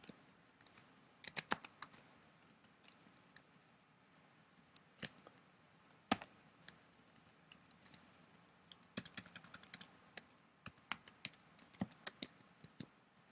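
Faint typing on a computer keyboard: short runs of keystroke clicks separated by pauses.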